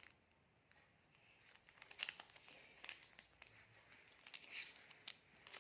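Packaging being handled: crinkling and rustling with small clicks and taps, starting about a second and a half in.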